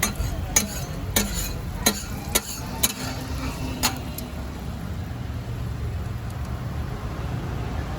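A cooking utensil clacking against a frying pan about every half second, seven times, then stopping about four seconds in, over a steady low hum of street traffic.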